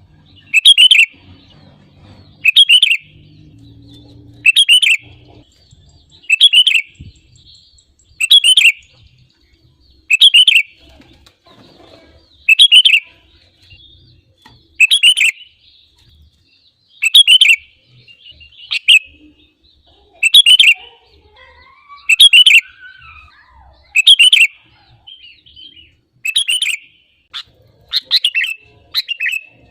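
Sooty-headed bulbul (kutilang) singing: a short, bright whistled phrase repeated about every two seconds. Near the end it breaks into shorter notes that come closer together.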